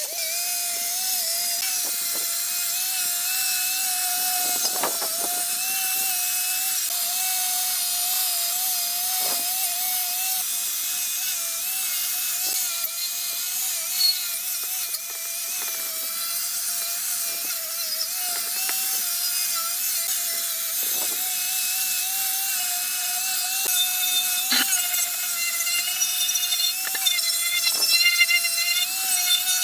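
A handheld power tool running continuously, with a steady, slightly wavering high whine over a rough scraping hiss and occasional clicks; the sound becomes more uneven near the end.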